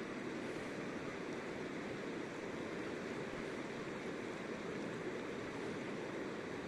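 Steady rush of a flowing river, an even wash of water noise with no breaks or changes.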